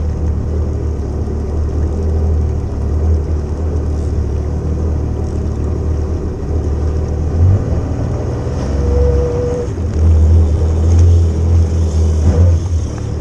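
Jet ski engine running at low speed, a steady low rumble. A short steady tone sounds briefly about nine seconds in.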